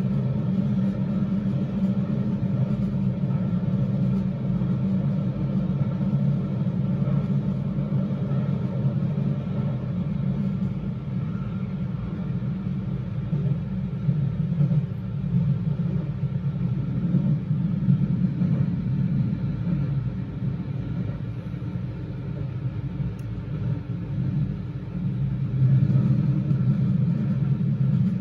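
Keio Line electric train running through a subway tunnel, heard from inside the front car: a steady low rumble of wheels on rail and running gear, easing a little in the later part and swelling again near the end.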